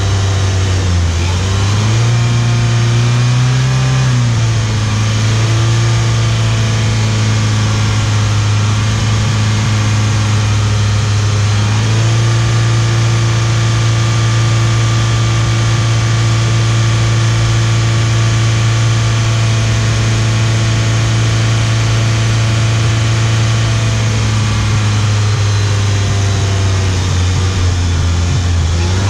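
Hyundai Sonata 2.0T's turbocharged GDI four-cylinder engine running at a raised, steady speed while aerosol intake-valve cleaner is sprayed into its intake. The engine speed steps up about a second in, drops back a few seconds later, rises again partway through, and eases off near the end.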